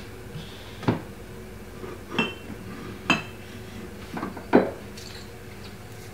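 A handful of separate clinks and knocks of kitchen items being handled off to the side, such as bottles and utensils set down on a countertop. Two of them have a brief metallic or glassy ring, and the loudest comes about four and a half seconds in.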